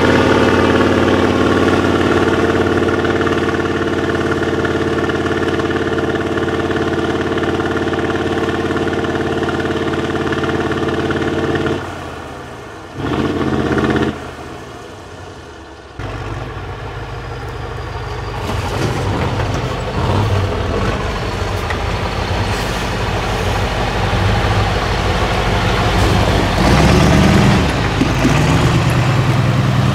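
Diesel engine of an 8x8 off-road trial truck running hard at steady high revs; about twelve seconds in the revs drop away and after a short lull the engine is heard again, rougher, rising and falling in revs and loudest near the end.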